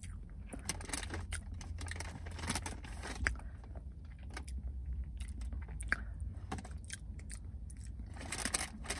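A person chewing a mouthful of cinnamon coffee cake, with scattered small clicks and crackles from the mouth and the food, over a steady low hum.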